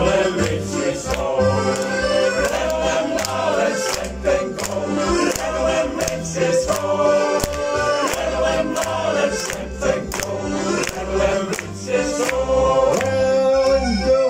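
Male shanty choir singing a song together, with accordion accompaniment and a steady beat in the low end.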